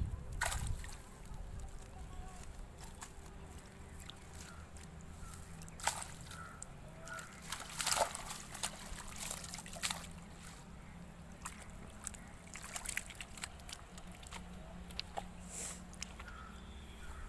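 Water sloshing and splashing as a mesh fishing net is dipped and worked in shallow river water, with the loudest splash about eight seconds in and a few sharp clicks between.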